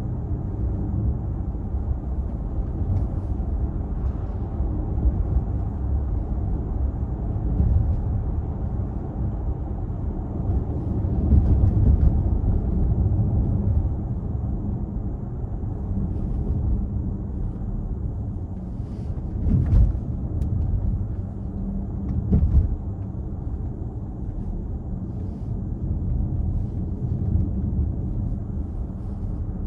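Cabin noise of an Audi Q4 e-tron driving at motorway speed: a steady low road rumble with a faint buzzing drone, a vibration from the front of the car whose cause is unknown. A few brief thumps from the road surface come through around the middle.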